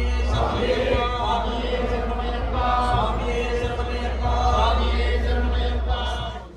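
A group of male voices chanting a devotional Ayyappa chant together over a steady low hum. It cuts off suddenly near the end.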